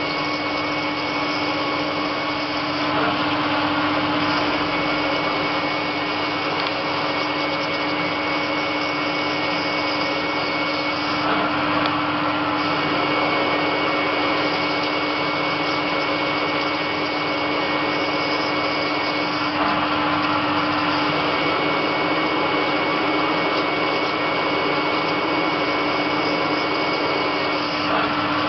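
CNC lathe turning a spinning metal workpiece under flood coolant: a steady whir with a constant low hum and a high whine running through it.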